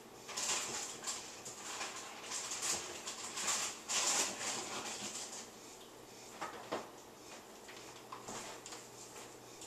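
Scratchy crackling in irregular bursts from a mantis feeding on a large beetle inside a clear plastic container, loudest in the first half. A steady low hum runs underneath.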